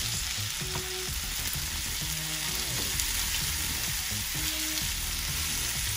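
Chicken drumsticks sizzling steadily in hot oil with onion, ginger and garlic in a stainless steel skillet.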